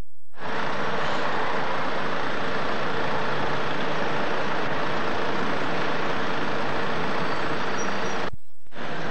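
Steady hum of street traffic picked up by the camcorder microphone. It drops out briefly at the start and again near the end.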